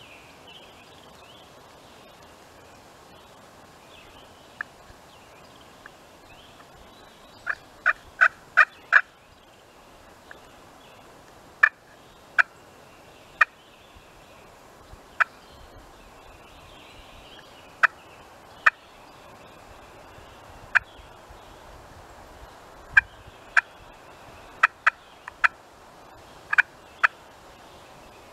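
Turkey clucking: short, sharp notes, sometimes singly and sometimes in quick runs of four or five, over a faint steady hush of woods.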